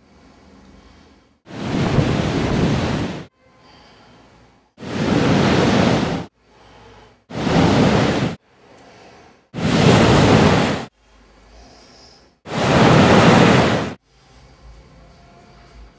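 Ocean surf breaking on a shore, heard in five abrupt bursts of a second or two each that start and cut off sharply, with quiet gaps of faint hiss between them.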